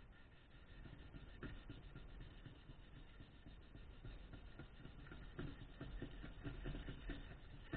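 Sandpaper rubbed back and forth by hand over a metal sheet: faint, repeated scratchy strokes, louder in the second half.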